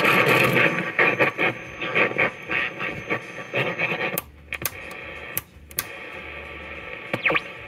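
Herbert H. Horn Tiffany Tone tube radio playing static and crackle through its speaker as its knobs are turned. Dirty controls make the sound scratchy, and it drops out about four seconds in, leaving scattered crackles and scratches.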